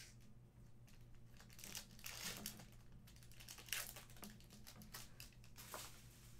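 Foil wrapper of a hockey card pack being torn open and crinkled by hand, in several short bursts of crackle with the sharpest about two-thirds of the way in. A faint steady hum runs underneath.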